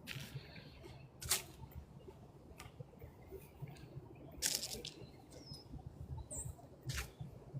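Dry fallen leaves crunching underfoot in four scattered crunches, a second or more apart, over a steady low rumble. A bird gives one faint short chirp near the end.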